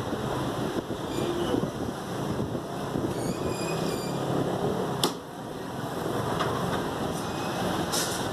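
Steady background din with a couple of sharp knocks of a butcher's cleaver striking a wooden chopping block while cutting mutton ribs, one about five seconds in and one near the end.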